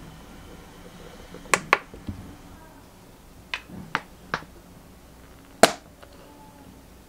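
Plastic squeeze bottle of mayonnaise being opened, handled and squeezed over sliced onions in a glass bowl: a series of sharp, short plastic clicks and taps, with the loudest single click near the end.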